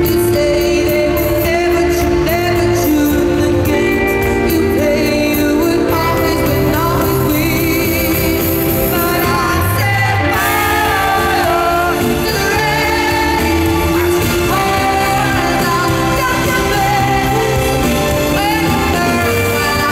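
A live pop song played loud in an arena: a female lead vocal over a full band, heard from among the audience.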